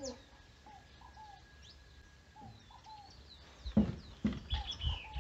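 Birds calling: repeated short falling whistles, mostly in pairs, with thin higher chirps above them. From about three-quarters of the way in, a few louder knocks and rustles of handling cover them.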